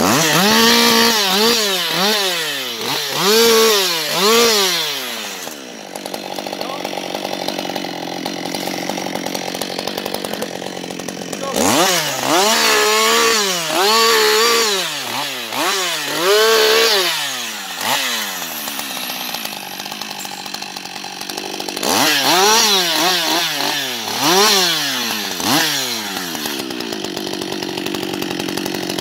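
Husqvarna 560 XP two-stroke chainsaw cutting in three bursts, each a run of quick revs rising and falling in pitch, settling back to idle between bursts.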